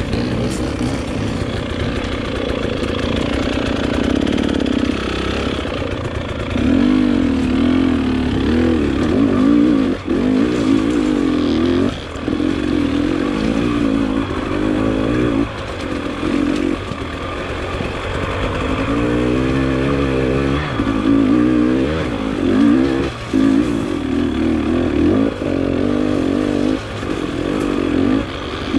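Dirt bike engine running hard, its pitch rising and falling with the throttle, and the throttle cut briefly several times.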